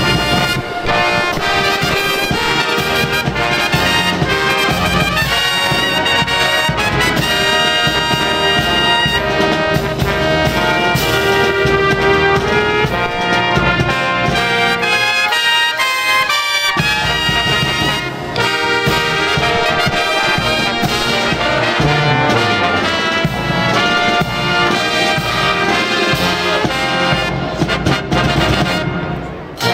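Brass band playing music.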